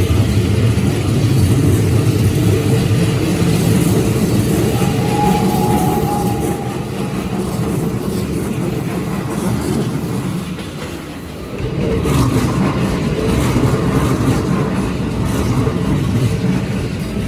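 Keikyu Line train passing over a level crossing: a steady rumble of wheels on the rails, easing off about eleven seconds in and building again a second later. A short steady high tone sounds for about two seconds, around five seconds in.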